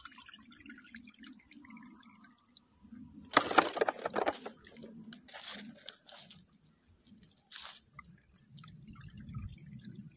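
Water splashing and sloshing in a plastic tub, with a few crunches, as cut sugarcane setts are handled and dipped in seed-treatment solution. A cluster of louder splashes comes a few seconds in, with shorter ones after it.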